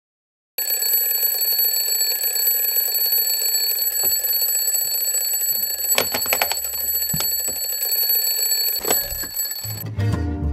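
Mechanical twin-bell alarm clock ringing continuously, starting just after the opening silence, with a few sharp knocks about six seconds in and again near nine seconds as a hand grabs at the clock. The ringing cuts off near the end.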